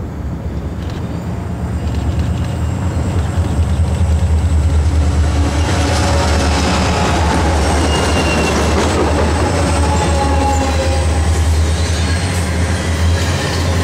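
A train of three EMD SD40-2 diesel locomotives approaches and passes close by, the low drone of their two-stroke V16 engines growing louder over the first few seconds. It is followed by the rumble and clatter of intermodal flatcars loaded with trailers rolling past.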